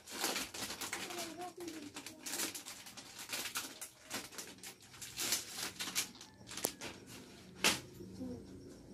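Plastic gift packaging crinkling and rustling in irregular crackles as it is handled and opened, with one sharper crackle near the end.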